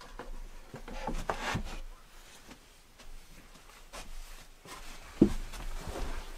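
Clothing rustling and wood creaking and scraping as a person moves about, then a sharp thump about five seconds in as she sits down heavily in an old upholstered armchair.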